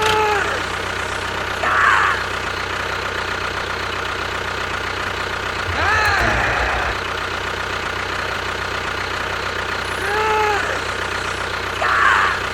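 A steady engine-like drone, with short rising-and-falling pitched squeaks every few seconds and a brief low pulsing near the middle.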